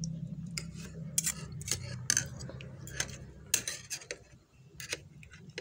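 Metal fork and spoon clinking and scraping against a plastic bowl of noodles: a string of about a dozen irregular clinks.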